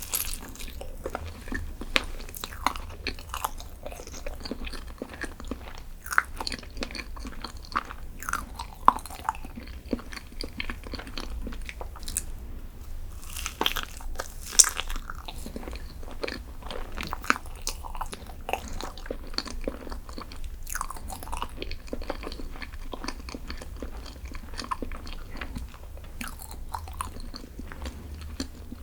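Close-miked eating: crunchy bites and chewing of a dessert, with many sharp crackling crunches throughout.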